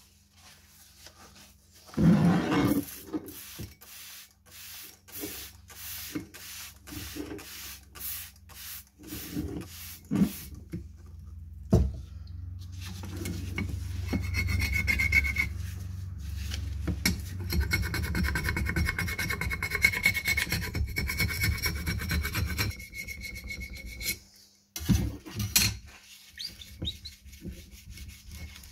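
Metal putty knife scraping a paper label off a glass wine bottle: first a run of short strokes about twice a second, then one long continuous scrape lasting about ten seconds.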